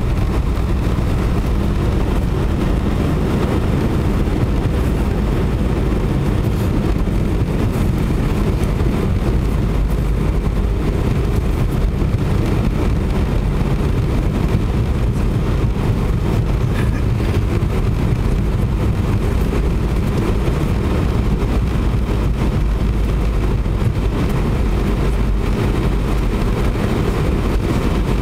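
Cabin noise of an Airbus A320-200 rolling on the runway after landing: a steady low rumble from the engines and the aircraft running along the ground.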